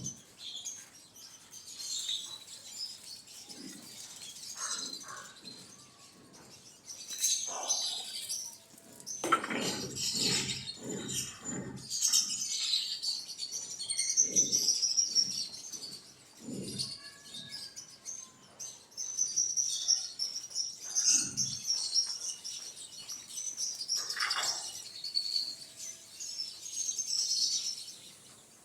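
Birds chirping and calling continuously in many high, quick notes, with short runs of lower pulsed calls now and then.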